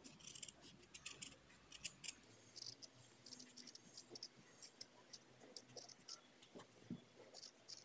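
Scissors cutting through felt: a quick run of faint, crisp snips as the blades close again and again.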